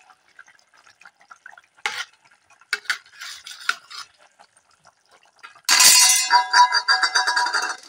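A metal spoon stirring curry in a metal wok: a few light clinks, then about six seconds in a loud spell of scraping with ringing metal tones.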